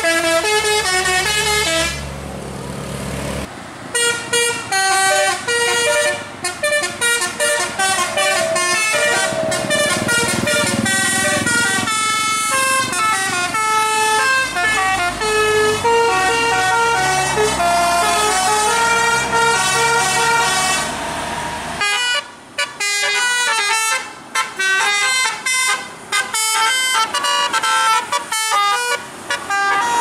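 Tour-bus Basuri telolet horns playing quick melodic runs of short, stepped notes, tune after tune, broken by several brief pauses in the last third.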